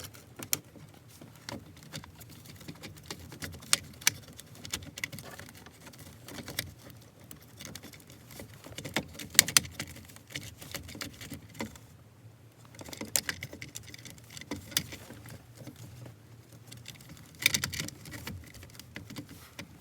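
Scattered sharp clicks and light rattles of plastic and metal parts being handled and fitted while a steering column's clock spring and trim are put back together, with small bursts of clicking about halfway through, about two-thirds through and near the end.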